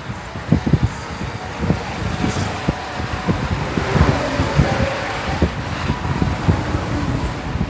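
Car travelling along a road, heard from inside: steady road and tyre noise with many irregular low thumps and buffets.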